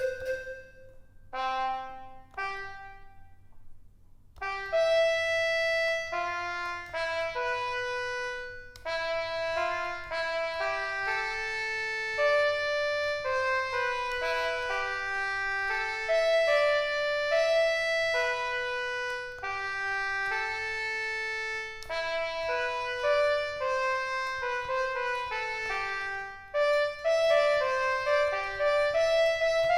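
A melody played on the EASYPLAY 1s keyboard with a trumpet-like brass sound sample. A few short notes and a brief pause come first, then a steady tune of held notes.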